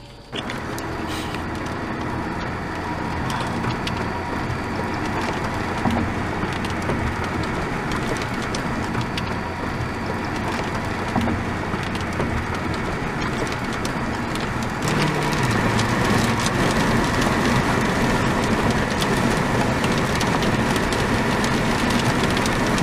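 Steady rush of road and wind noise inside a moving car, growing louder about fifteen seconds in.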